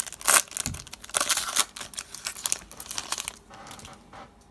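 A trading-card pack wrapper crinkling and being torn open: a rapid run of crackles and rips that dies down over the last second.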